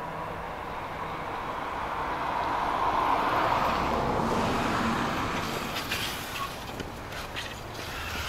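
A van passing on the road, its engine and tyre noise swelling to a peak about three seconds in and then fading away. A few short clicks and knocks follow near the end.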